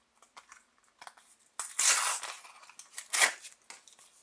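Paper football stickers rustling and sliding against each other as they are leafed through by hand: a longer rustle about a second and a half in and a sharper swish about three seconds in, with a few light ticks between.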